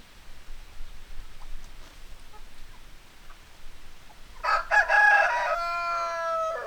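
A rooster crows once, starting about four and a half seconds in: a few short broken notes, then one long held note that stops abruptly.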